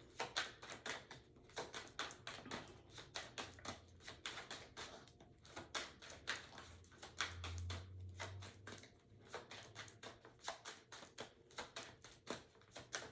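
A deck of tarot cards being shuffled by hand: a rapid, irregular run of soft card clicks and flicks. A faint low hum rises briefly in the middle.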